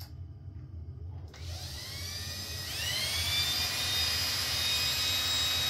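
Electric drill starting up about a second in, its whine rising in pitch and then running steady. The bit is being wobbled to enlarge a too-small hole in an SO-239 connector's metal flange.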